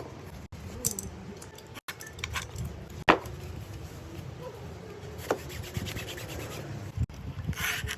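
Workshop handling sounds of small parts: light rubbing and scraping with a few sharp clicks and taps, the clearest about three seconds in and another just after five, broken by abrupt cuts.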